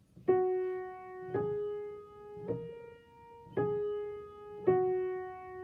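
Piano played one note at a time on the black keys: five single notes about a second apart, each struck and left to fade, rising three steps and falling back.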